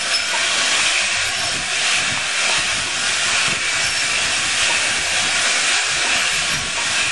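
LNER A4 steam locomotive venting steam in a loud, steady hiss.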